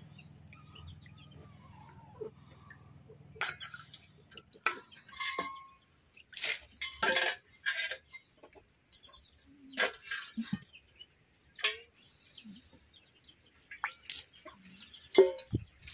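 Water splashing and a steel bowl clattering as raw fish pieces are washed by hand in it, in a run of short irregular splashes. Near the end the wash water is tipped out of the bowl and splashes onto the ground.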